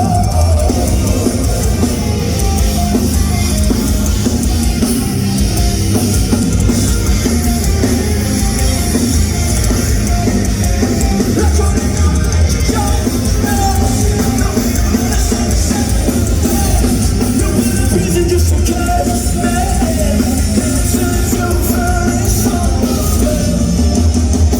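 Rock band playing live at full volume, drum kit prominent over the guitars and bass.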